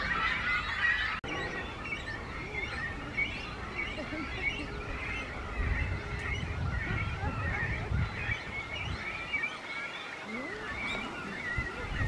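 Great cormorant chicks calling from the nest: many thin, high chirps overlapping without pause. A low rumble comes in about halfway through.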